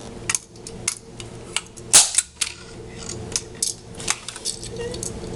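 Staple gun firing again and again at a small die-cast toy car: about a dozen sharp, irregularly spaced snaps, the loudest about two seconds in.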